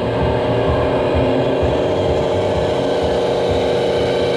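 Radio-controlled model truck running slowly with a steady, even-pitched engine-like hum that holds constant throughout.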